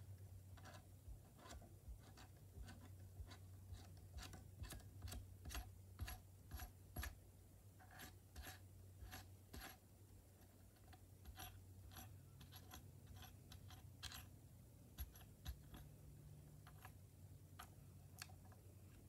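Light, irregular clicks and taps, roughly one to three a second, from hands handling a small white plastic sewing machine up close, over a low steady hum.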